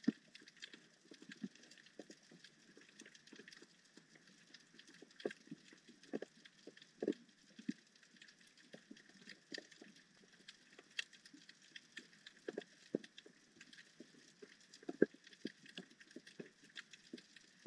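Faint underwater crackling heard through a waterproof camera housing: a steady scatter of small clicks and pops, with a handful of sharper, louder clicks at irregular moments.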